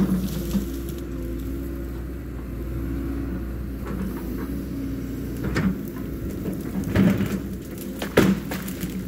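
Cat 314 hydraulic excavator's diesel engine running steadily under work, with several sharp knocks and cracks as the bucket and thumb work into a brush pile, the loudest near the end.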